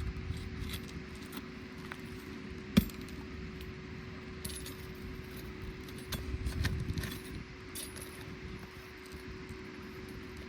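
Small clicks and rustling from handling asphalt shingles and the staples in them on a roof, with one sharp click a little under three seconds in and a louder spell of rustling about two-thirds of the way through, over a steady low hum.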